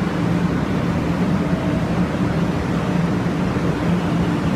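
Steady low hum of a 500 Series Shinkansen train at the platform, with a few held low tones in it.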